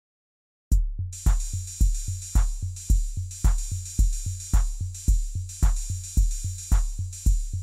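Brief silence, then a drum-machine beat kicks in about 0.7 s in: a deep, booming kick roughly twice a second under bright hi-hat ticks, with no vocals.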